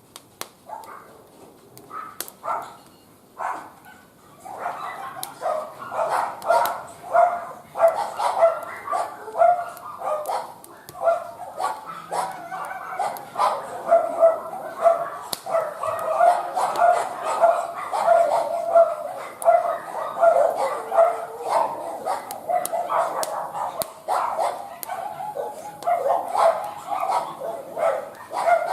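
A dog barking over and over in a long unbroken run, starting about four seconds in, with a few loud barks a second. Sharp crackling pops from the wood fire sound throughout.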